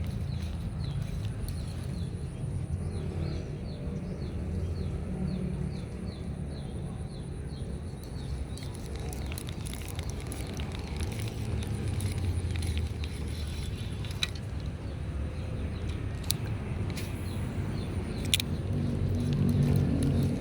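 A steady low rumble, with a quick run of evenly repeated high chirps over roughly the first eight seconds and a few sharp clicks near the end.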